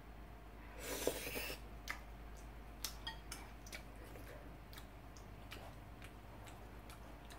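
Close-miked chewing of a mouthful of spicy stir-fried sundae and udon: soft, wet mouth clicks and smacks, with a short noisy burst about a second in.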